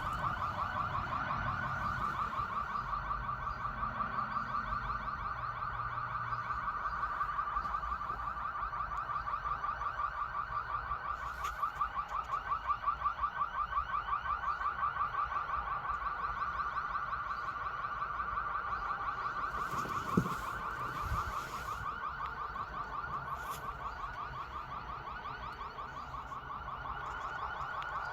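Car alarm sounding: a steady, rapidly warbling high tone that starts abruptly, with one sharp click about twenty seconds in.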